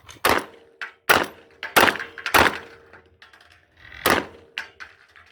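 Gunshots on an outdoor shooting range: four shots in quick succession, well under a second apart, then a fifth after a pause of about a second and a half.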